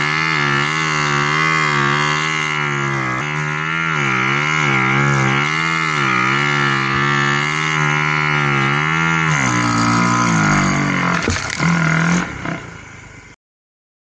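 Snow bike's engine (a dirt bike on a Timbersled track kit) running under throttle through deep powder, its note wavering up and down with the throttle. About nine and a half seconds in it drops to a lower note with some rattling, then dies away and cuts off near the end.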